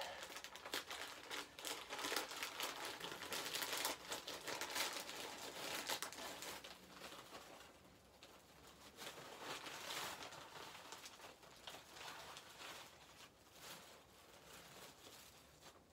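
Shipping packaging crinkling and rustling in irregular bursts as a package is opened by hand.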